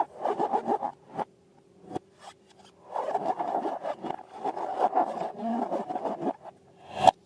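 Rubbing and scraping from balloons and slime being handled by hand: a quick run of scratchy strokes, a pause, then a longer stretch of continuous rasping, with one sharp click near the end.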